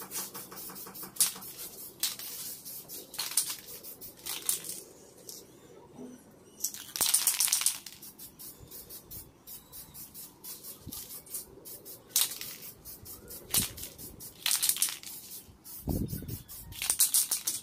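Aerosol spray paint can spraying in short hissing bursts, with one longer burst about seven seconds in; between bursts the mixing ball rattles as the can is shaken.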